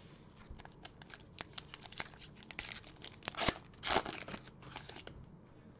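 Foil wrapper of a Panini Prestige football card pack crinkling and tearing as it is ripped open, a run of sharp crackles with two louder rips a little past the middle.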